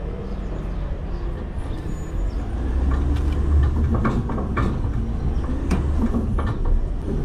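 Autocar/Heil front-loader garbage truck running, its low engine rumble growing louder about two and a half seconds in, with a series of metal clanks and knocks over it.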